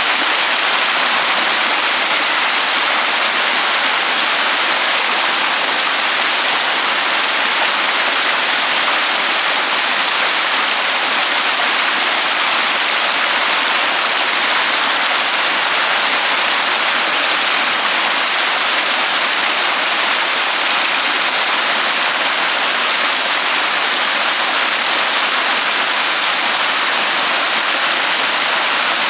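Steady, even rushing noise like a waterfall, unchanging throughout, with most of its weight in the high hiss and little low rumble.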